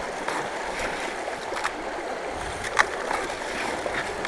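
Shallow stream water running through a drop-riffle sluice while gravel is fed into it from a plastic bucket, with a few sharp clicks of stones, the loudest near three seconds in.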